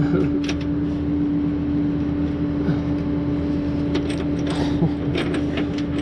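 Idling truck engine with a steady hum, and a few light metallic clinks and rattles scattered through it.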